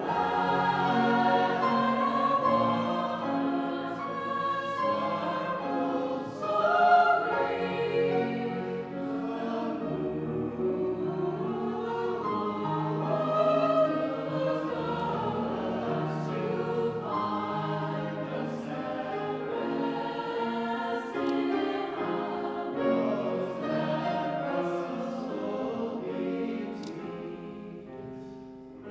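College choir singing in a live recital, several voices sounding together in held, changing chords; it grows quieter near the end.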